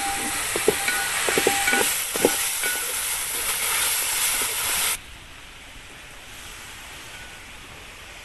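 Onions, tomato and ground ginger, garlic and green chilli sizzling in oil in a large metal pot, with a spatula stirring and knocking against the pot. About five seconds in, the frying cuts off suddenly to a quieter, steady outdoor background.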